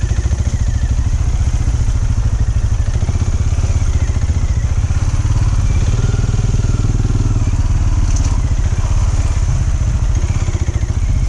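Benelli Imperiale 400's single-cylinder engine running at low speed with a steady, even beat of firing pulses as the bike creeps along in slow traffic.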